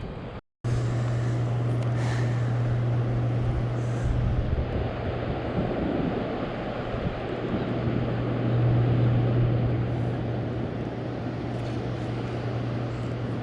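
A steady low mechanical drone with an even rushing noise over it, swelling slightly about nine seconds in; it starts after a brief dropout near the beginning.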